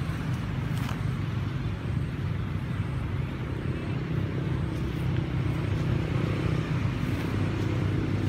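A steady low engine-like rumble, as of a motor vehicle running nearby, under even outdoor noise.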